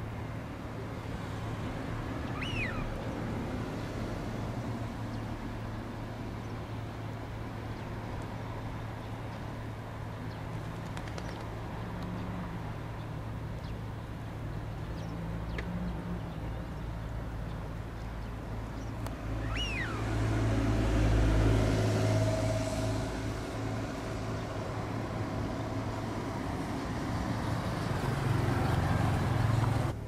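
Steady low rumble of distant engine noise, swelling louder about 20 seconds in and again near the end. Two short, downward-gliding bird whistles come through, one about two seconds in and another about nineteen seconds in.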